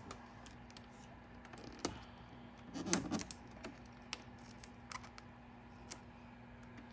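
Gloss vinyl wrap film being stretched and pressed down by fingers and nails onto a grille trim piece: faint scattered clicks and crinkles, with a louder rustle of the film about three seconds in.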